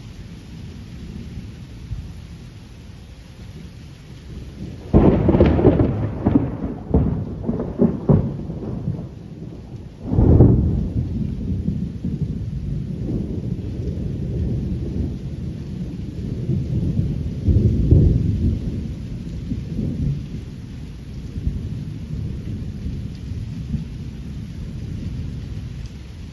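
Thunder: a sudden clap about five seconds in that crackles for several seconds, a second sharp clap about ten seconds in, then a long low rolling rumble that swells again and slowly dies away.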